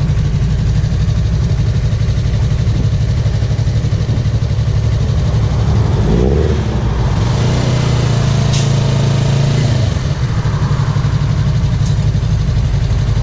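Yamaha R3 sport bike's parallel-twin engine running at highway speed, picked up by a GoPro on the bike under heavy wind rush on the microphone. The engine note rises about six seconds in, then holds a steady hum for a few seconds.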